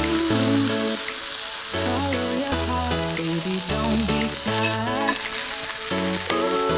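Food frying in a pan, a steady sizzling hiss, under background music with a repeating bass line.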